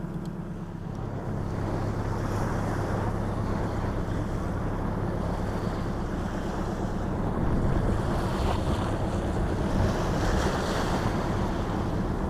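Small sea waves washing onto a sandy beach, with wind rushing on the microphone. A low steady hum runs underneath, and the wash grows a little louder past the middle.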